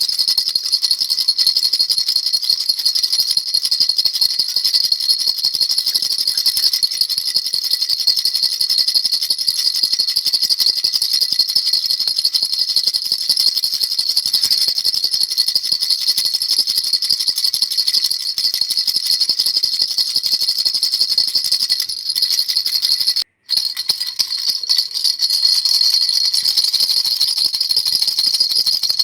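Baby rattle shaken without pause, a dense, bright jingling rattle, cut off for a split second about two-thirds of the way through.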